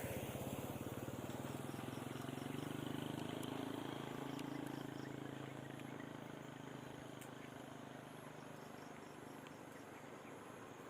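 A small engine running steadily with a fast, even pulse, slowly fading away.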